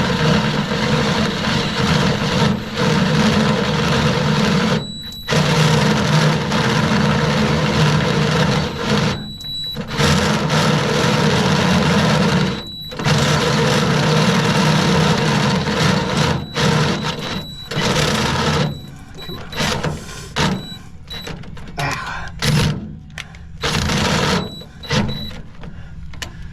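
Cordless drill with a 5/8-inch bit boring through a steel trailer I-beam. It runs in long steady pulls with a few brief stops, then shorter stop-start bursts near the end. The drill is short of power for the job.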